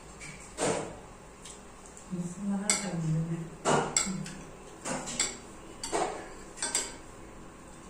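Metal spoons and forks clinking and scraping against bowls and plates as two people eat, in scattered sharp clicks, about nine of them.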